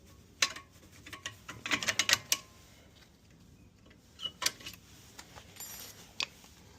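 Metal clicks and clinks of hand tools working on a car's rear brake caliper: scattered sharp taps, a quick cluster about two seconds in, and a few more later.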